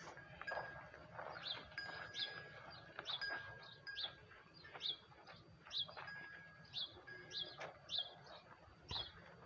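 Birds chirping in short high calls about once a second, with a bell-like tone ringing now and then at one unchanging pitch.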